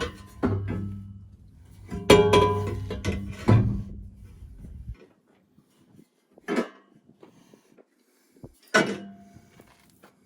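Background music with a guitar stops abruptly about halfway through. It is followed by two sharp knocks of metal parts, the second with a brief metallic ring, from exhaust pipes being fitted.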